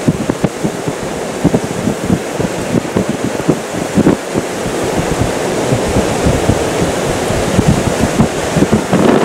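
Strong squall-line wind gusting hard: a steady rushing noise with irregular low thumps of wind buffeting the microphone.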